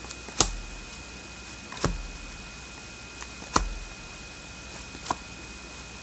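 Cards being dealt one at a time onto a table: four sharp taps, about one every second and a half.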